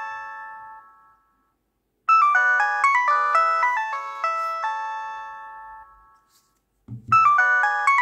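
A Nokia mobile phone ringing with a quick melodic ringtone. The tune plays in phrases of about four seconds, each dying away and then starting over after a pause of about a second. A short soft thump comes just before the last restart near the end.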